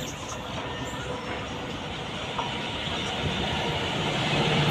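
Indian Railways WAG-9 electric locomotive and passenger coaches running toward the listener. The noise of the wheels on the rails grows steadily louder as the train nears.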